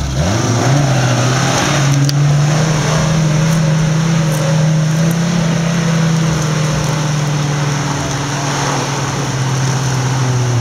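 Off-road 4x4's engine revved up about a second in and held at high revs for several seconds, under load as the vehicle strains to drive out of a stuck spot, then easing off near the end.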